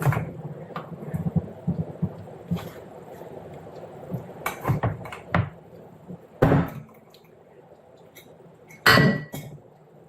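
Metal tongs clinking against glass jars and dishes as onions are packed in: a run of light clicks, then a few sharper clinks, the loudest near the end with a brief ring.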